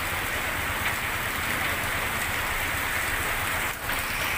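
Steady rain falling on umbrellas and a wet street.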